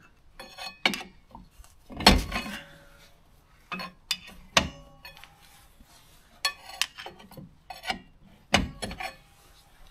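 Screwdriver prying and knocking at the rusted brake drum of a Trabant 601: irregular metallic clinks and knocks, some ringing briefly, the loudest about two seconds in. The seized brake shoes are wedging the drum in place.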